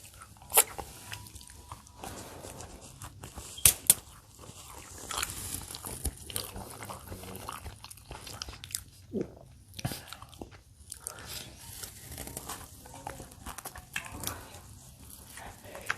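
A person biting into and chewing a slice of pizza topped with popcorn chicken and mac and cheese, close to the microphone: irregular crunches and mouth noises, with a couple of sharper clicks in the first few seconds.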